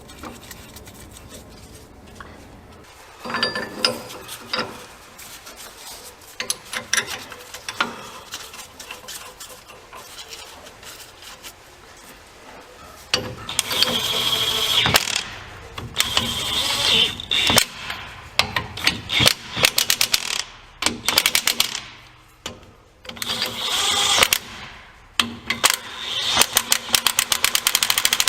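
Pneumatic tool (impact wrench or air ratchet) running bolts down in five short bursts of rapid hammering, the bearing cap bolts of a Ford 9.75 rear differential being snugged before torquing. A few metal clinks come a few seconds in.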